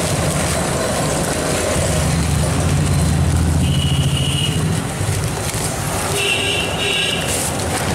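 Busy road traffic rumbling steadily, with short vehicle horn toots about halfway through and twice more near the end.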